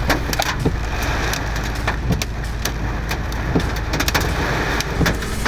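Heavy storm rain driven by strong wind: many sharp drop strikes over a steady low rumble.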